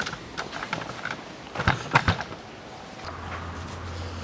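Plastic retaining clips of a Land Rover Discovery 3's front bumper side trim snapping as the trim is pried loose: a few sharp clicks and knocks about two seconds in.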